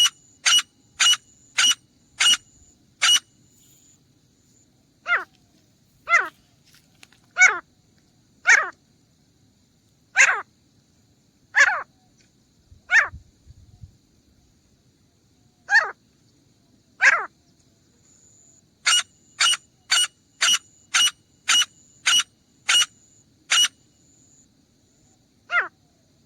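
Grey francolin calling. A quick run of sharp, piercing notes, about two a second, gives way to slower notes that slide down in pitch a second or more apart. Another quick run follows about three-quarters of the way through.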